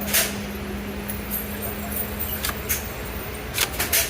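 A string of sharp gunshot reports at a shooting range: one near the start, two about two and a half seconds in, and three in quick succession near the end, over a steady low hum.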